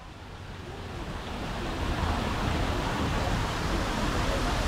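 Steady rushing of falling water, fading in over the first two seconds and then holding even.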